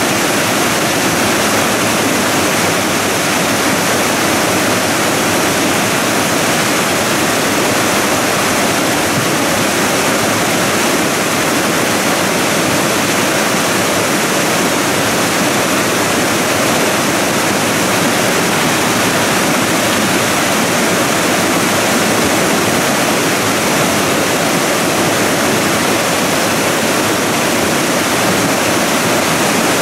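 Debris flow of muddy water and rock slurry running down a gully in morainic deposit, giving a loud, steady rushing noise with no distinct knocks standing out.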